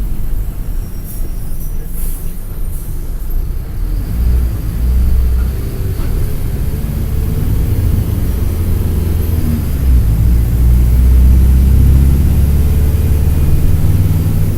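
Mercedes-Benz OF-1722M bus's OM-924 LA turbodiesel engine running while the bus is under way, with a deep low drone that grows louder from about a third of the way in, as under acceleration, and is loudest near the end.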